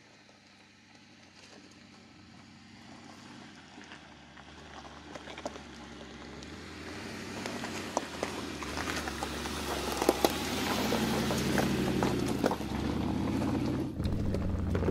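Mercedes-Benz G500's V8 engine pulling the SUV slowly up a rocky track, growing steadily louder as it approaches, with tyres crunching and popping over loose stones. About a second before the end the sound changes abruptly to a low, steady engine hum.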